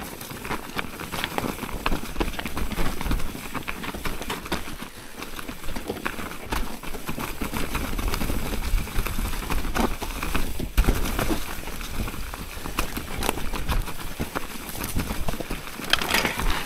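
Mountain bike riding fast down a rough forest trail: tyres rolling over dry leaves and loose stones, with a constant irregular clatter of knocks and rattles from the bike, and wind noise on the microphone.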